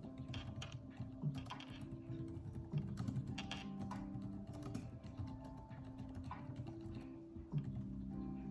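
Typing on a computer keyboard, a quick irregular run of key clicks, over soft background music with held low notes.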